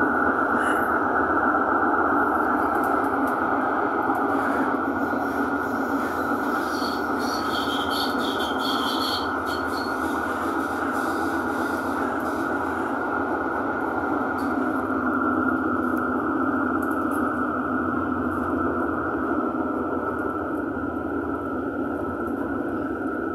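Bochum tram running steadily through a tunnel, heard from inside its cab: a continuous rolling rumble with a steady high tone over it. About seven seconds in, a high wheel squeal lasts for two or three seconds.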